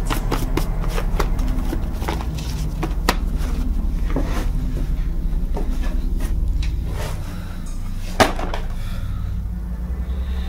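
Scattered clicks and knocks from handling objects in the dark, with one sharp, loud knock about eight seconds in, over a low steady drone.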